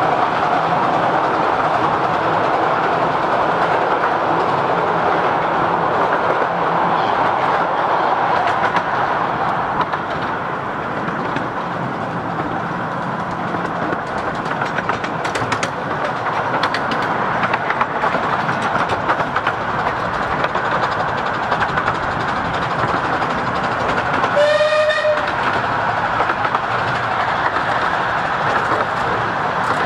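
A 15-inch-gauge Romney, Hythe & Dymchurch Railway steam train running, heard from one of its carriages: a steady rumble of wheels on rail, with sharp clicks as it crosses pointwork. A steam whistle sounds once, briefly, about five seconds before the end.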